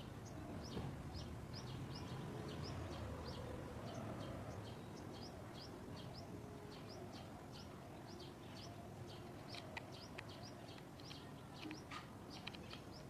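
Small birds chirping, a steady run of short high chirps about three a second, over a low background rumble.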